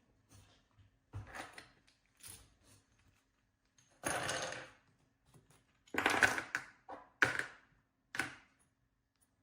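Small drone parts and tools being handled on a workbench: a series of short clatters and rustles, about eight in all, the loudest about four seconds in and around six to seven seconds in.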